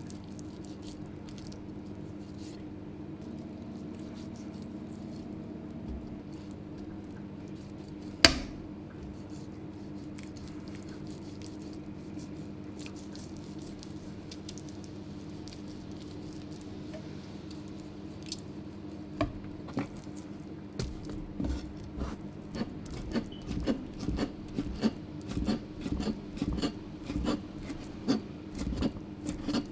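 Long kitchen knife working a boiled octopus tentacle on a plastic cutting board: quiet trimming at first, then from about two-thirds of the way in a run of chopping taps on the board, about two a second. One sharp knock stands out a little over a quarter of the way in, and a steady low hum runs underneath.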